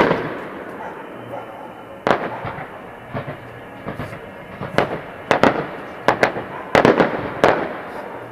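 Aerial firework shells bursting overhead: a string of sharp bangs, irregularly spaced and coming closer together in the second half.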